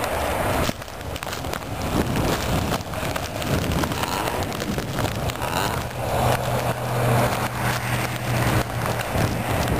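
Wind buffeting the microphone with a crackling rustle, over passing road traffic. In the second half a vehicle engine's steady low hum comes up and holds for several seconds.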